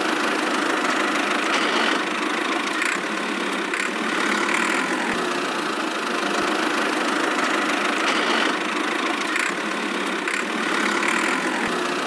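Small motor of a miniature toy tractor running steadily as it drives, an even buzzing hum with no low rumble.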